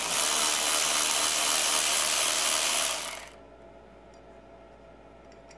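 Cordless electric ratchet running steadily, spinning out one of the loose 10 mm bolts that hold the wiper motor to the wiper linkage; it stops about three seconds in.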